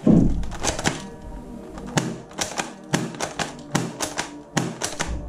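Quick irregular clicks and clacks of a hard plastic toy rifle being handled and its parts worked, over background music, with a heavy thump at the very start.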